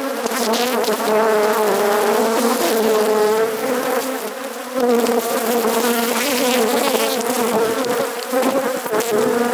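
Honeybees buzzing loudly around an opened hive: a dense, steady drone whose pitch wavers slightly.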